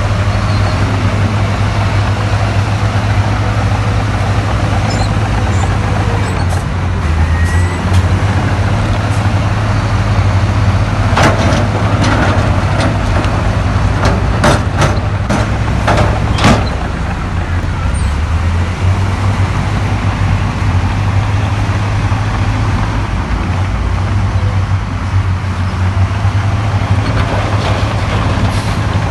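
Diesel engine of heavy earthmoving machinery running steadily with a deep rumble, with a cluster of sharp knocks and clanks in the middle.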